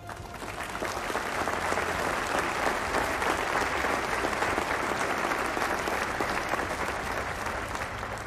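A large seated audience applauding, the clapping swelling about a second in and easing off near the end.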